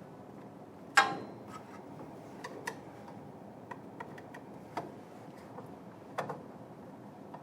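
Screwdriver and metal carriage parts being handled while screws are refitted: a loud metallic clack about a second in that rings briefly, then a scatter of small clicks and taps.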